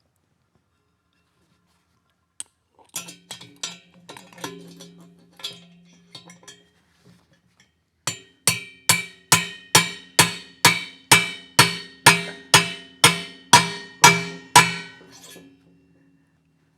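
Hammer blows on a metal driver, ringing after each strike, as a bronze exhaust valve guide is driven into a heated Aermacchi cylinder head. A few light, irregular taps come first, then about fourteen steady, harder blows at a little over two a second.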